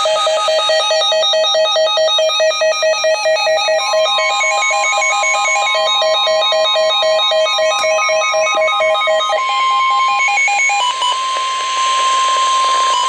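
Electronic emergency alert tones: a rapid, warbling pattern of alternating beeps, joined about four seconds in by a steady attention tone near 1 kHz. The beeping gives way to hiss a few seconds before the end while the steady tone carries on.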